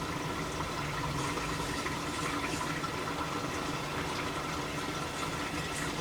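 Washing machine running, water pouring in steadily with a faint hum underneath.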